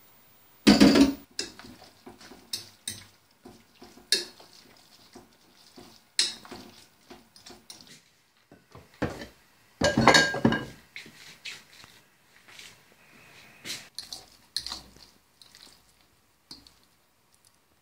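A metal spoon clinking and scraping against a glass bowl as food is mixed in it, in irregular knocks and clinks. There are two louder, longer scrapes, one about a second in and one around ten seconds.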